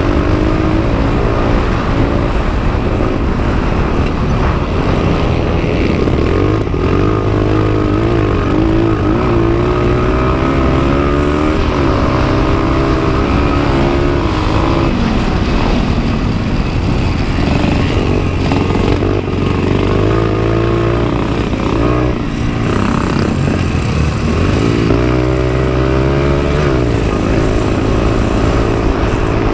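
Honda XR100's air-cooled four-stroke single-cylinder engine, heard from on board, running hard. Its pitch rises and falls again and again as the rider opens the throttle on the straights and backs off for the corners.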